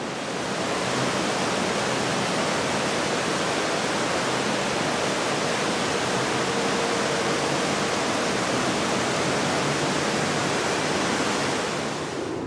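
Steady rush of water from a small waterfall pouring into a pond, dropping away near the end.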